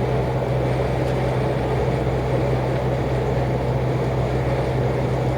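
Lorry engine and road noise heard from inside the cab while driving: a steady low drone with an even rush of tyre and wind noise over it.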